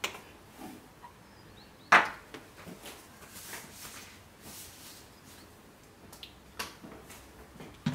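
A stirring utensil clicking and knocking against a mixing bowl as soap batter is stirred by hand, with one sharp knock about two seconds in and a few lighter clicks after.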